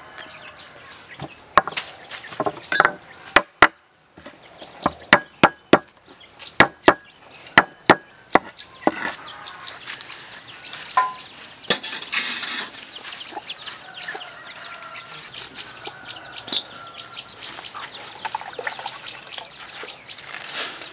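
A run of about a dozen sharp knocks in the first half, then chickens clucking.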